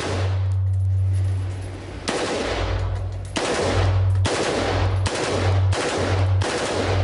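Modified AR-15 rifle firing on full automatic in rapid bursts. A first long burst of about two seconds is followed by a string of shorter bursts about a second each, back to back.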